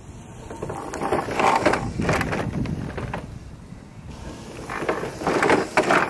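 Permobil F3 power wheelchair driving, its wheels rolling and the chair rattling, with two louder stretches about a second in and again near the end.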